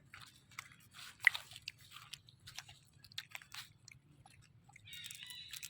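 A baby monkey chewing and biting food, with irregular crunches, the loudest about a second in. Near the end a high-pitched squeaky call starts.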